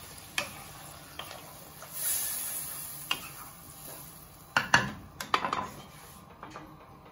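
A spatula stirring thin, watery curry gravy in a kadhai, swishing through the liquid and clicking against the pan. A little past halfway comes a cluster of sharp clacks as the spatula is knocked against the pan and laid on its rim.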